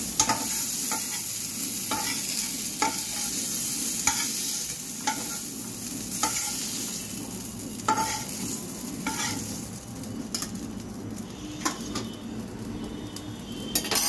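Metal spatula scraping and tapping in a nonstick frying pan of fried potato and peas, a stroke about once a second, over the pan's steady sizzle. The sizzle fades after about ten seconds, and a sharp metal clatter comes near the end.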